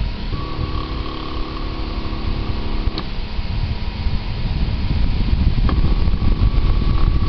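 DIY Prusa i3 3D printer running: its stepper motors whine in steady tones during the print-head moves, twice, each stretch starting or ending with a sharp click, over steady fan noise.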